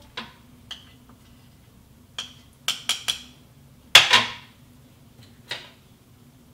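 A small metal spoon clinking and tapping against the stainless-steel mixing bowl of a stand mixer as sticky sourdough starter is knocked off it: a series of sharp taps, the loudest about four seconds in with a short metallic ring.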